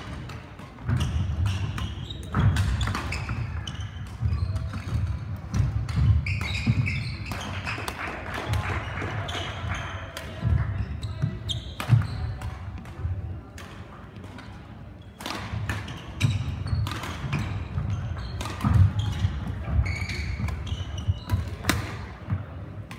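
Badminton rally sounds: sharp smacks of rackets striking the shuttlecock at irregular intervals, over the repeated thudding of players' footsteps on the court floor.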